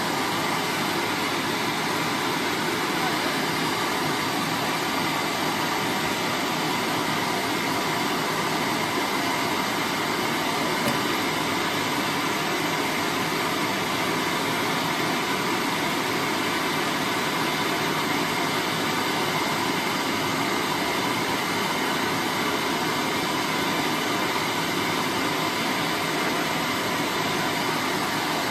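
Two gas blowtorches burning, a steady, even hiss that does not change.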